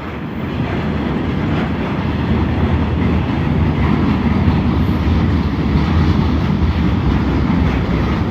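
Freight train rolling past, a steady rumble of wheels on rail that grows a little louder about two seconds in.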